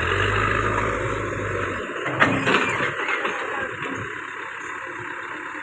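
A steady low engine hum that cuts off suddenly about two seconds in, followed by a sharp knock, over a constant noisy background.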